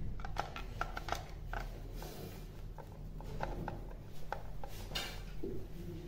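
Screwdriver working small screws out of a smart lock's handle mechanism: light, irregular metallic clicks and ticks of the tip and screws against the housing, with a brief scrape about five seconds in.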